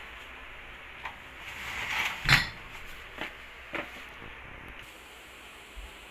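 Plastic crates of glass soft-drink bottles being shifted: a short scrape builds up and ends in one loud knock about two seconds in, followed by a few lighter knocks and bottle clinks.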